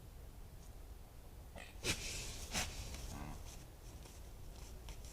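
A buck deer blowing air hard through its nose, the snort-wheeze of a rutting buck. A sharp burst of air about two seconds in turns into a hiss, and a second burst follows about half a second later.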